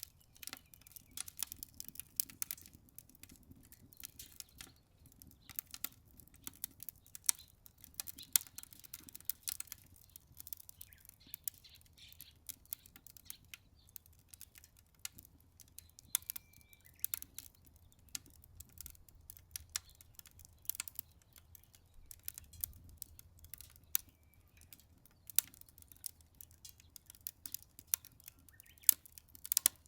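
Wood fire crackling in a Solo Stove Ranger fire pit: irregular sharp pops and snaps, several a second, over a low steady rumble.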